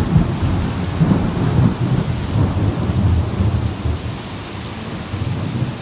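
Heavy rain pouring down, with a low, uneven rumble beneath the hiss that eases off after about four seconds.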